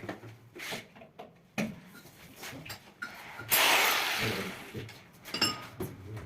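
Small clicks and knocks of hand work on metal fixings while fitting a gas hob. About three and a half seconds in, a sudden loud rushing noise starts and fades over about a second.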